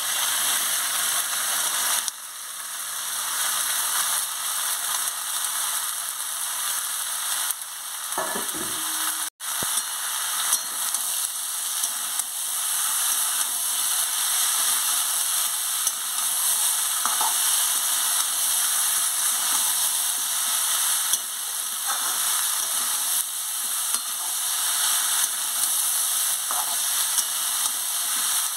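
Pumpkin and potato pieces sizzling as they fry in oil in a metal kadai, while a metal spatula stirs them and scrapes against the pan.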